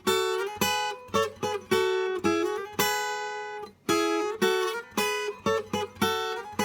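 Acoustic guitar strummed, chord strokes ringing out one after another: the instrumental introduction of a song.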